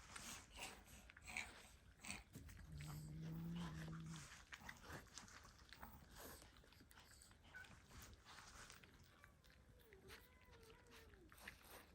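A dog eating watermelon: faint wet chewing and biting clicks, with a short low drawn-out vocal sound from the dog about three seconds in.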